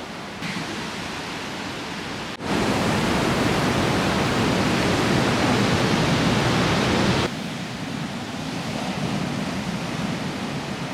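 Steady rushing wash of ocean surf on a beach. It jumps much louder about two and a half seconds in, holds for roughly five seconds, then drops back suddenly.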